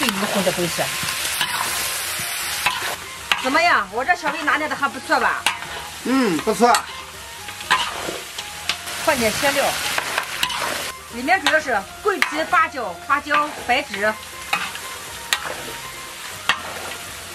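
Chicken pieces sizzling in hot oil in a large wok, stir-fried with chopped dried chilies as their moisture cooks off. A metal spatula scoops and scrapes against the wok again and again, with scraping sounds that rise and fall in pitch.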